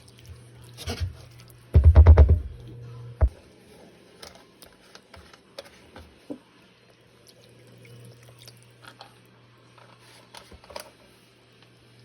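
Kitchen handling noises: scattered clicks and knocks of utensils and cookware, with a loud, rapid rattling clatter about two seconds in, over a steady low hum.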